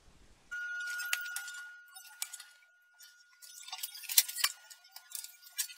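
Quiet, scattered metallic clinks and ticks of a steel rule and small tools handled on sheet steel, over a faint steady high tone.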